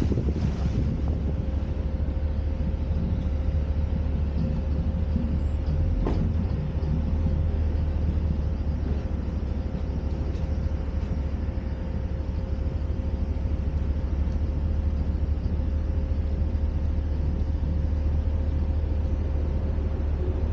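Lavatory service truck running at a steady low rumble with a faint steady whine, and a single knock about six seconds in.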